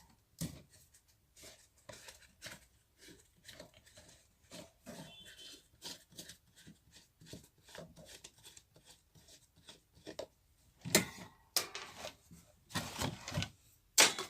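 Wall fan being taken apart by hand: a run of small clicks and taps from its parts being handled, with louder knocks about eleven seconds in and again near the end.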